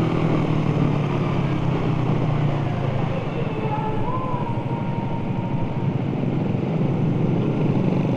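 Suzuki Satria F150 fuel-injected single-cylinder motorcycle engine running while riding, with wind and road noise. The engine note drops back in the middle as the bike slows, then strengthens again near the end.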